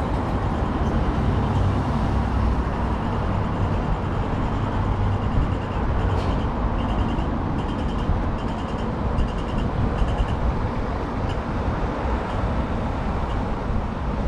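City street traffic: a steady low rumble of passing cars and buses, heavier in the first half. Midway, a short high-pitched beep repeats about every half second for roughly four seconds.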